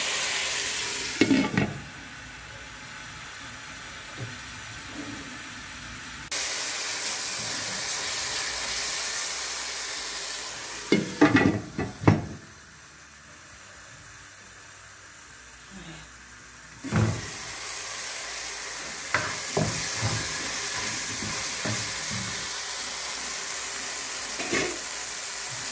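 Chopped tomatoes and onions sizzling as they fry in oil in a non-stick pot, with a spatula knocking against the pot. About eleven seconds in, a glass lid clatters onto the pot and the sizzle drops until it comes off again about five seconds later.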